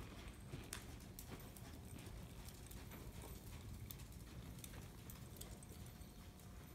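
Faint hoofbeats of a palomino horse moving over soft sand arena footing, scattered dull thuds over a low steady background rumble.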